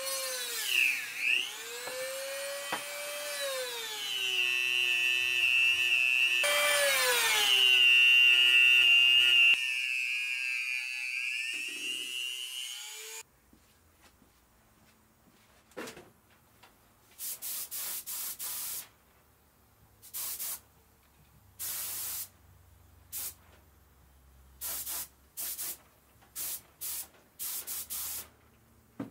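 A small cordless rotary tool with a wire brush whines, its pitch dropping and rising as it is pressed against a metal part, and stops about 13 seconds in. Then a compressed-air spray gun hisses in about ten short trigger bursts while spraying two-pack clear coat.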